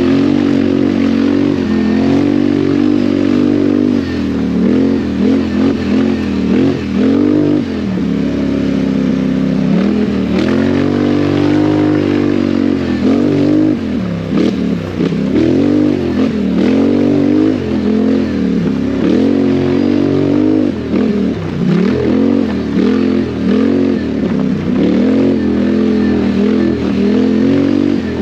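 ATV (quad bike) engine ridden hard off-road, its pitch rising and falling again and again as the throttle is opened and shut.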